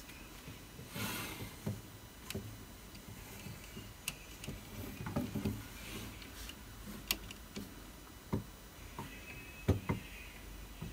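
Plastic Lego Sky Shark model and minifigures handled and moved on a wooden tabletop: irregular sharp clicks and light knocks of plastic on wood, with brief handling rustle.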